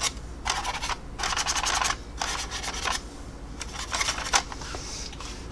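A series of short rubbing strokes across the plastic surface of a scale model aircraft as oil-paint weathering is blended in.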